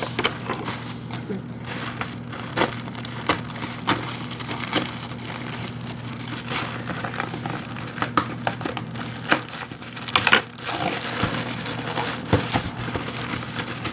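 Cardboard shipping box being cut and torn open by hand, with irregular crunching, snapping and crinkling of cardboard and packaging.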